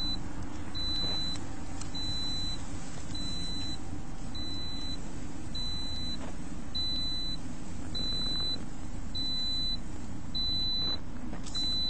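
Car's warning chime with the driver's door standing open: a steady high beep, on about half a second and off about half a second, repeating evenly about every 1.2 seconds. A steady low rumble runs under it.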